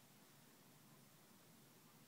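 Near silence: faint steady hiss of room tone, with no bird calls or footsteps.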